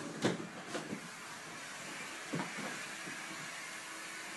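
A few soft knocks of handling: near the start, just under a second in, and about two and a half seconds in. A steady faint hiss runs underneath.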